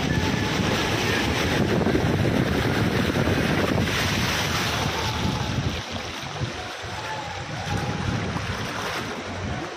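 Storm wind buffeting the microphone over rushing floodwater, a loud, dense rushing noise whose low rumble drops away about six seconds in, leaving a lighter, gusty wash.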